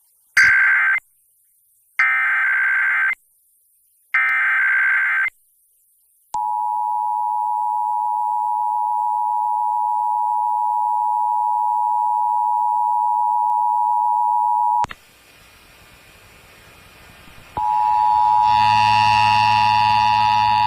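Emergency Alert System test on broadcast radio: three short screeching bursts of the digital SAME header, then the two-tone EAS attention signal held for about eight seconds before it cuts off. After a short hissy gap the attention tone starts again near the end, with further steady tones joining it.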